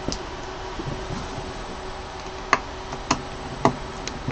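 Small hard clicks as holder clips are fitted to hold the replacement LCD screen in a resin printer: three sharp clicks about half a second apart, over a faint steady hum.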